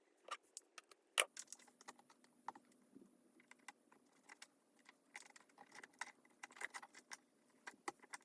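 Irregular small clicks, taps and crinkles from two-sided adhesive tape and its plastic backing film being handled and pressed along the edges of an iPad frame. The sharpest click comes about a second in.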